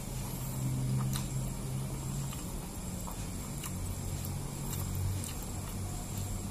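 Mukbang eating sounds: fingers working rice on a plate and quiet chewing, with a few faint clicks. Under it runs a low hum that drops in pitch about halfway through, over a steady hiss.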